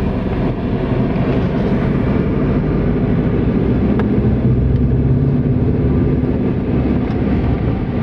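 Car engine and road noise heard from inside the cabin of a moving car: a steady low hum that grows a little stronger about three seconds in.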